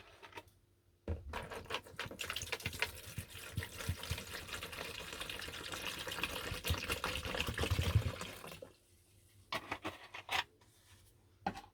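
White vinegar being poured into a container for about seven seconds, with small knocks through it, to soak the rusty vise parts for rust removal. A few separate knocks follow near the end.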